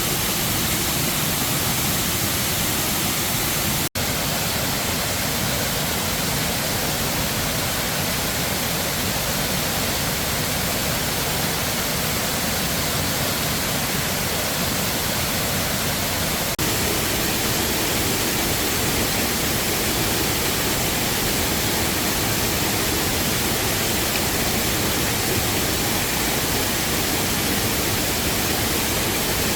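Waterfall rushing steadily, with a momentary gap about four seconds in and a slight shift in its sound a little past halfway.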